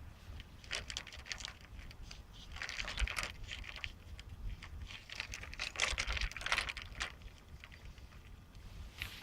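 Irregular rustling and crinkling, like something being handled, in several bursts, the loudest about three and six seconds in, over a low steady rumble.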